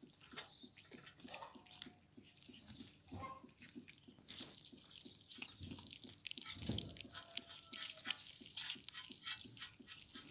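Hungry kittens eating meat: many small wet chewing clicks, with a few short meows scattered among them.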